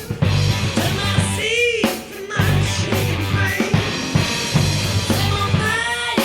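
Background pop-rock song with a steady drum-kit beat, bass and a singing voice.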